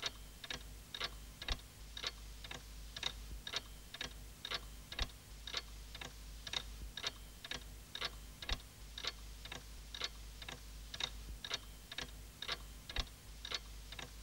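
Clock ticking steadily, about two and a half ticks a second, over a low hum.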